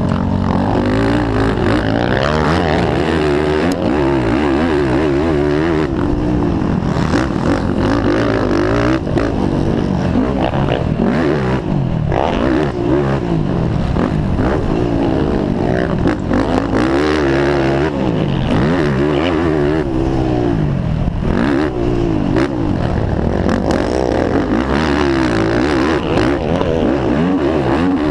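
Racing ATV's engine heard from onboard, revving up and falling back again and again as it is ridden hard around a motocross track.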